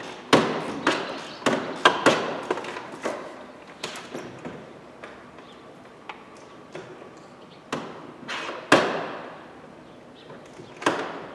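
Sharp metallic clicks and knocks from a 1/4-inch ratchet working the door-mirror nut loose from inside a car door. They come in a quick irregular run during the first four seconds, then as a few separate knocks; the loudest, about three-quarters of the way through, rings briefly.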